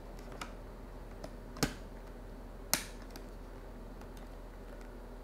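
Sharp plastic clicks as the FreedConn KY headset unit is slid and snapped onto its clip-on helmet bracket: two loud clicks about a second apart, with a few fainter ticks around them.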